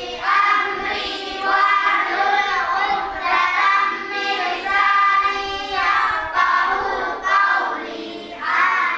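A group of voices singing together in unison, in phrases of held notes.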